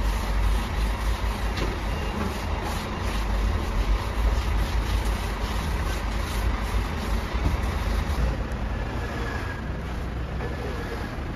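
A steady low mechanical rumble, like a running engine, under a constant noisy hum.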